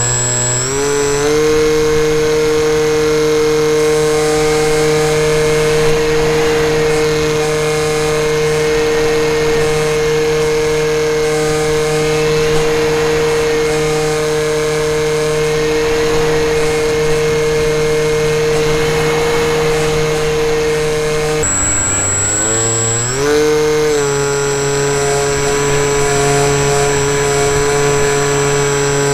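Brushless electric motor and propeller of an FPV model plane, heard from the onboard camera, whining at a steady pitch under constant throttle. About 21 seconds in the throttle is eased back and the pitch drops, then it climbs back up to full whine about two seconds later.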